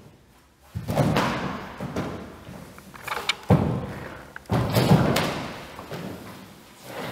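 Heavy thuds and scuffs of a dancer's body and feet striking and sliding on a wooden floor: three loud thuds, about a second in, at about three and a half seconds and at about four and a half seconds, each trailing off over about a second, with lighter knocks between.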